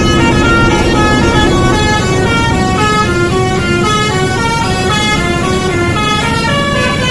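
Basuri telolet multi-tone bus horn playing a quick melody, the pitch stepping from note to note about every third of a second, over a steady low rumble.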